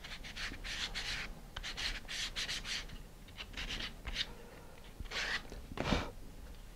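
Small wooden disc rubbed against a hand-held sanding stick: a run of short, irregular scratchy sanding strokes, the loudest near the end. It is sanding off a thin film of glue that made the disc fit too tightly.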